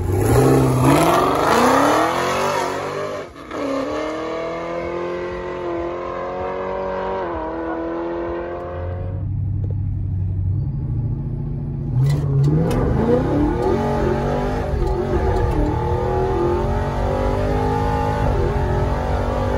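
A Chevrolet Camaro's engine launching off the drag strip line at full throttle. Its pitch climbs through the gears, with shifts about three and a half and seven seconds in, then fades away around nine seconds. About twelve seconds in, another car's engine revs and accelerates, heard from inside the cabin, its pitch rising and stepping with each shift.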